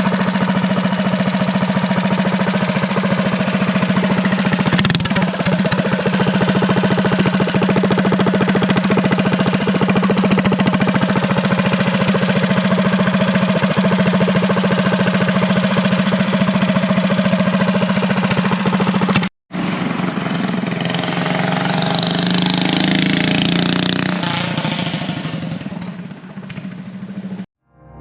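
Minibike's small engine running at a steady high speed. After an abrupt cut about two-thirds of the way in, it runs again with its speed rising and falling, fading off near the end.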